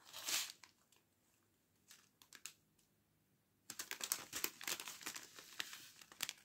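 Small thin plastic zip-lock bags of rhinestones crinkling as they are handled: a short burst right at the start, a few faint ticks, then steady crinkling over the last two and a half seconds.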